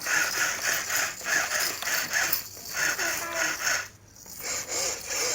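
A person's voice speaking in short phrases with brief pauses.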